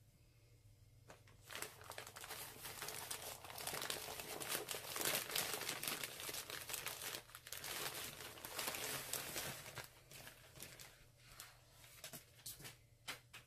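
Packaging crinkling and rustling as a folded T-shirt is unwrapped from its subscription box, dense for several seconds, then thinning out to scattered crinkles and taps near the end.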